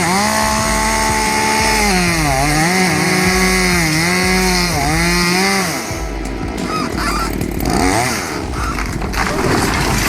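Chainsaw running at high revs, its pitch dipping and recovering about three times. It cuts out about halfway through, leaving rougher mixed noise.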